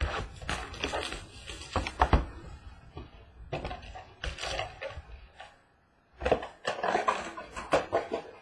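A cardboard Contenders Football hobby box being opened by hand and its card packs pulled out and set down on a tabletop: a run of crinkles, scrapes and light knocks, with a brief pause a little past the middle.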